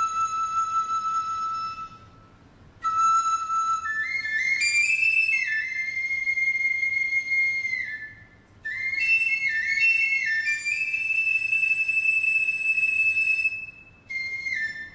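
Chinese bamboo flute (dizi) played solo: long held high notes in phrases broken by short pauses, with flurries of quick ornamental notes as the melody steps up.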